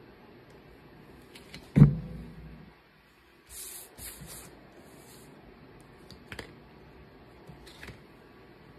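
Handling sounds from weeding cut vinyl on a cutting mat: one loud thump about two seconds in, then a few short bursts of scratchy hiss and some light clicks.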